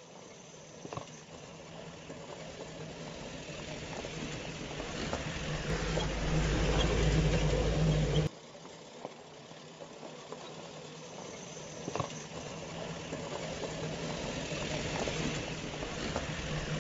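Small electric motors of a homemade toy jeep whirring steadily as it drives, towing a trolley, with its wheels rolling over dirt. It grows louder, cuts off abruptly about eight seconds in, then starts again quieter and builds up.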